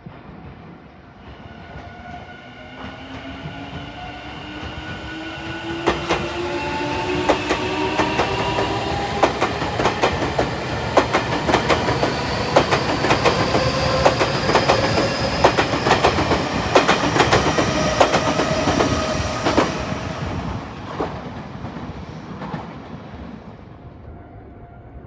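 Electric train passing close by: its motors whine in several tones that rise steadily in pitch as it gathers speed, and the wheels clack over rail joints through the loud middle stretch. The sound builds up, peaks for about twelve seconds, then fades away.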